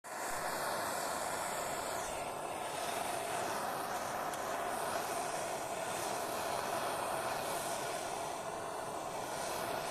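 Gas torch burning steadily, a continuous blowing roar that switches on abruptly at the start, heating a cylinder-head valve and the oil around it to about 120–130 °C for hot straightening.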